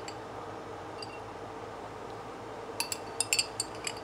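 A fork clinking against the inside of a glass jar as red pepper strips are fished out: a few faint clicks at first, then a quick run of sharp glassy clinks near the end.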